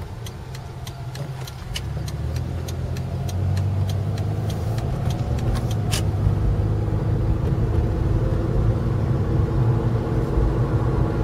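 Distant outdoor tornado warning siren winding up faintly, its tone slowly rising, under a loud low rumble of wind or traffic. A regular ticking runs through the first half.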